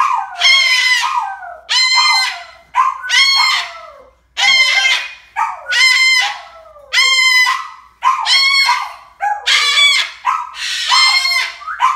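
Umbrella cockatoo calling loudly over and over, about one call a second, each call a piercing cry that drops in pitch at its end.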